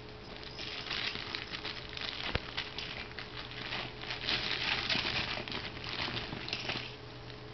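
Rustling and crinkling of soft fabric baby-gym toys as an infant bats and grabs at them, in irregular bursts with many small ticks, over a faint steady hum.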